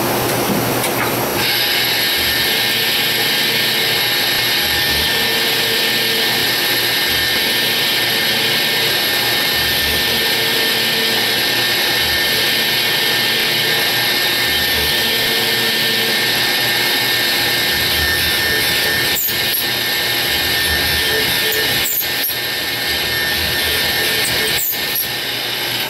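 Miyano BNX-51MSY CNC lathe machining a part with two tools in cut at once: a steady hiss of cutting with steady high spindle tones and an uneven low pulsing as the milling and drilling tools engage. Three short knocks with brief pitch sweeps come in the last seven seconds.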